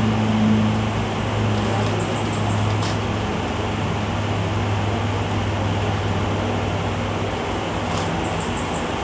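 An Eastsheen 5x5 plastic puzzle cube being turned without pause: a dense clatter of layer turns over a steady low hum.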